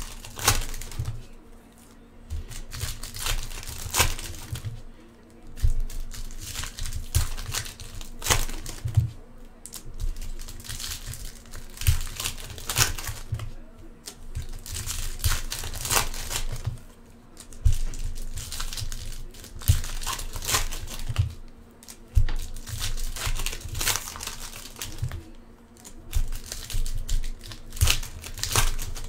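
Foil trading-card pack wrappers crinkling and tearing as packs are ripped open one after another, in irregular bursts with short pauses between.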